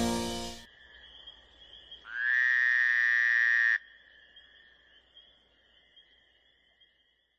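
Rock music fading out, then a single frog-like croak sound effect for a logo: one pitched call about a second and a half long that slides up at its start, holds steady and cuts off suddenly.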